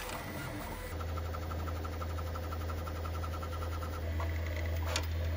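Bambu Lab P1P 3D printer running a high-speed print: stepper motors and fans humming. About a second in, the hum gets louder and a quick regular ticking comes in, and there is a single click near the end.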